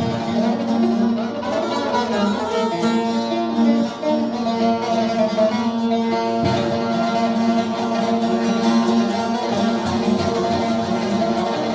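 Instrumental music on plucked strings over a steady held low note.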